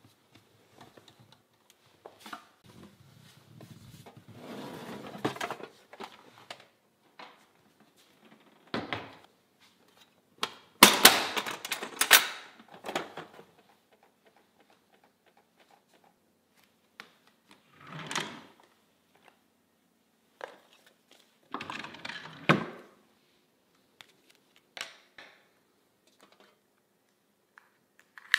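Scattered clicks, knocks and rustles of things being handled: a wooden cabinet door being opened and the clasp latches of a white metal box being worked. The loudest is a cluster of sharp clicks about eleven to thirteen seconds in.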